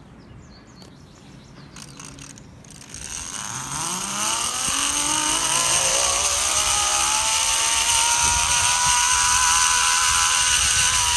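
Zip line trolley's pulley wheels running down a steel cable. A whine starts about three seconds in, rises in pitch as the rider picks up speed, then holds steady and loud over a rushing hiss.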